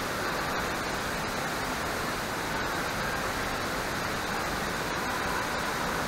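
Large waterfall pouring over a rock face: a steady, even rush of falling water.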